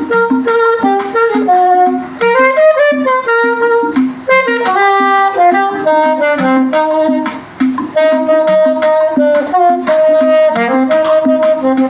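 Saxophone playing a slow hymn melody in held, stepping notes over a backing track with a steady beat.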